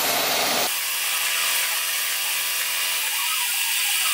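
Warco Super Mini Lathe running, its tool cutting a small recess into a turning piston blank: a steady machine whine with cutting hiss. Less than a second in the sound changes abruptly and loses its low rumble.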